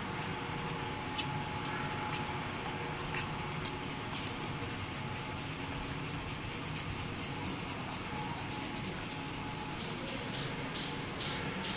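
Rubbing and scratching handling noise on a hand-held phone being carried along, with a rapid run of scratchy ticks through the middle, over a steady low hum.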